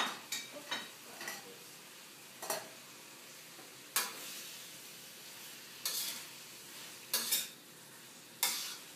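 A utensil scraping and knocking against a stainless-steel wok as chicken livers are stirred: sharp strokes every second or so over a steady sizzle of frying.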